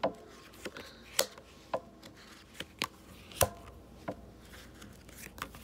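Tarot cards being laid and tapped on a wooden table top: about nine light, sharp clicks at uneven intervals, the loudest about three and a half seconds in.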